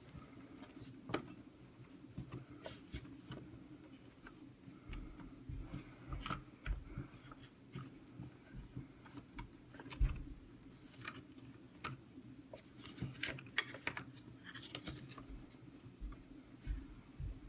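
Faint, irregular clicks and small knocks of plastic parts as a Dyson DC25 vacuum's foot pedal is worked into place against its spring, over a low steady hum.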